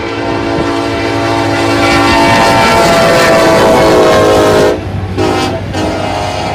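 BNSF diesel locomotive's air horn sounding a long chord as the locomotive passes close by. The pitch drops as it goes past, and the horn cuts off about three-quarters of the way in. The rumble and clatter of the train's wheels on the rails runs beneath it and carries on after.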